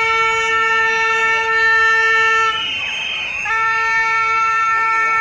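Yellow plastic stadium horn blown in two long, steady, single-note blasts: the first stops about two and a half seconds in, and the second starts about a second later. Crowd voices fill the gap between them.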